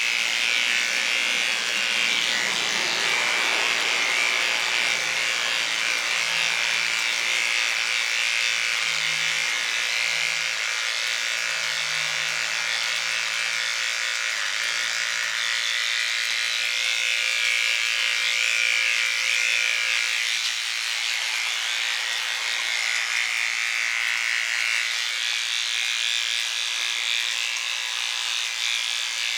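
Electric hair clippers running with a steady buzz while trimming a dog's hair.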